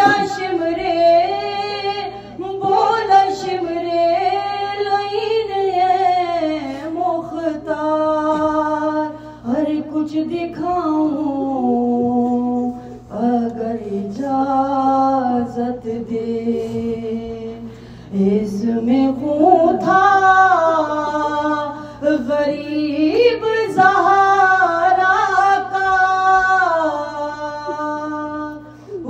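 A woman chanting a salam in the soz style, her solo voice unaccompanied, drawing out long held notes that glide up and down between phrases. A steady low hum runs underneath.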